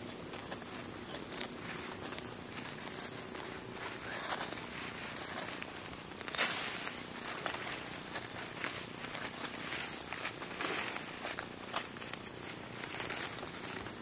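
Steady high-pitched trill of insects, with scattered scrapes and clicks of a small hand tool digging in soil around sweet potatoes; one sharper click about halfway through.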